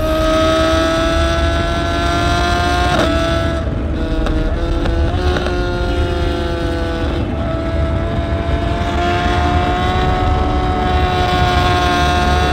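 Sport motorcycle engine running hard at high revs while riding at speed, its pitch climbing slowly. The pitch dips briefly several times, about three to seven seconds in, as gears are changed, then climbs steadily again. Wind rumble runs underneath.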